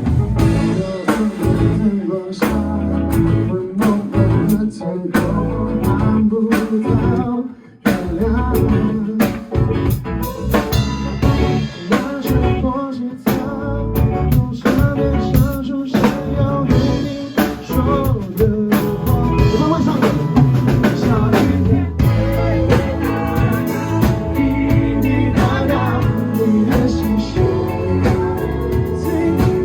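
A band playing a song live, with drum kit, guitar and singing. The music breaks off briefly about eight seconds in, then comes back in.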